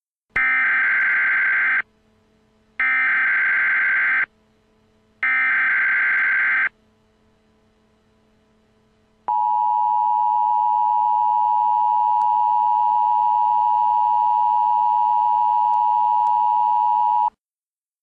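Emergency Alert System broadcast signal: three short bursts of SAME digital header data, each about a second and a half long, about a second apart. After a pause of a couple of seconds comes the steady two-tone EAS attention signal, which runs for about eight seconds and then cuts off suddenly.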